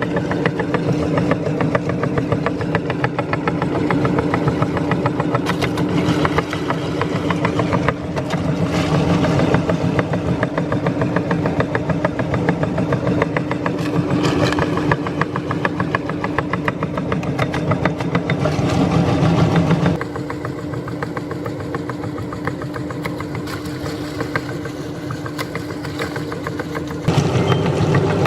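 Meat grinder running with a steady motor hum under a dense, fast crackle of material being crushed and ground. About two-thirds of the way through it goes quieter and thinner for several seconds, then picks back up near the end.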